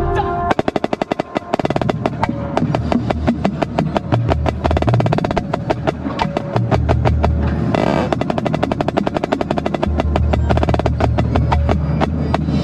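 Marching snare drum with an Evans head played close-up with sticks: fast, dense strokes and rolls beginning about half a second in, with a steady low bass sound underneath.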